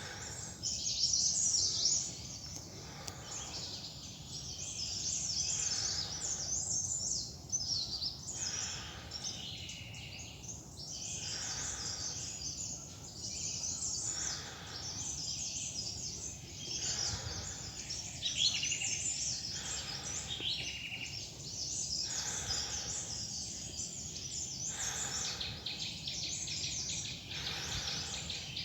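A chorus of forest birds chirping and calling, with many short overlapping trills and chirps, over a steady low rumble.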